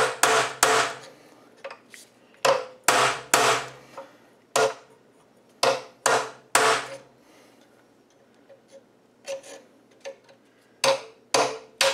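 A hammer striking a steel punch set against the rusted muffler lock nut on a Briggs & Stratton Model 8 engine, about fifteen sharp metallic blows, mostly in quick runs of two or three, each with a short ring. The nut is seized tight and not turning.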